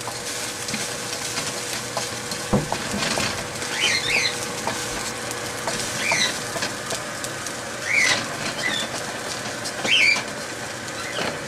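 Rice and chicken frying in a pan with a steady sizzle, and a single knock about two and a half seconds in. Over it a bird chirps about every two seconds.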